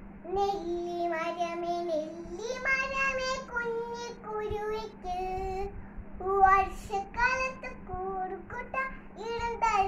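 A young girl singing a song solo without instruments, holding notes that step up and down in pitch, phrase by phrase.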